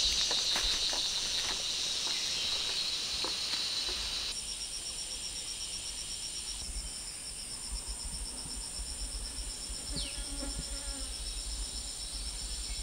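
Forest insect chorus: steady high-pitched buzzing and trilling. The chorus changes abruptly about four seconds in, and an evenly pulsing trill joins a little later. Scattered light clicks sound in the first few seconds, and one short falling whistle comes about ten seconds in.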